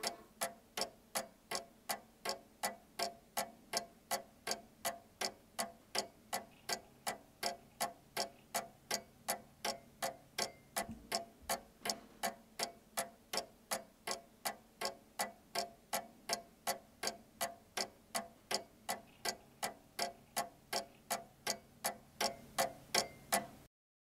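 A clock ticking steadily, a little over two ticks a second, growing somewhat louder near the end and then cutting off abruptly.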